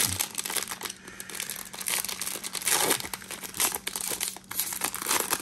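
Foil wrapper of a Topps baseball card pack crinkling and tearing as it is ripped open by hand.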